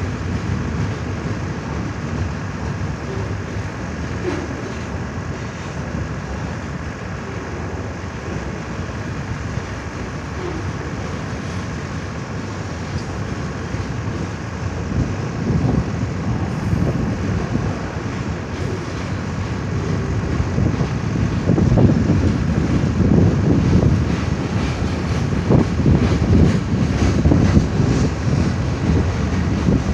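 CN freight train's cars rolling past on the rails, a continuous rumble of wheels that grows louder and more clattering in the second half. There is some wind noise on the microphone.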